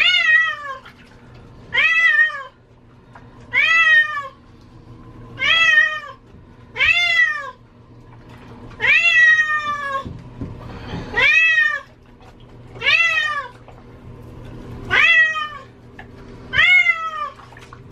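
Domestic cat meowing loudly and repeatedly in distress while being bathed, about ten drawn-out meows that fall in pitch at the end, one every couple of seconds.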